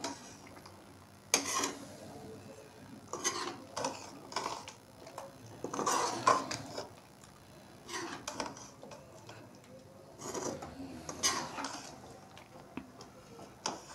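Ladle stirring chicken curry in a cooking pot, scraping and knocking against the pot in short bouts every second or two, with quiet gaps between.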